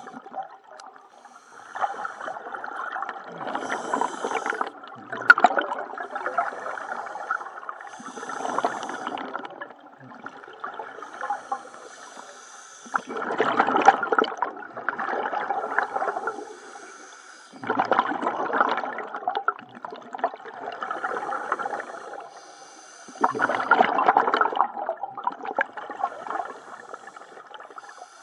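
Scuba diver breathing through a regulator underwater: hissing inhalations alternating with louder bubbling exhalations, a breath about every four to five seconds.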